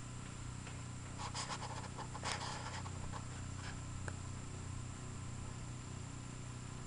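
Light scratching and rustling about a second or two in, from fingers handling dry grass tinder against a pop can, over a steady low hum.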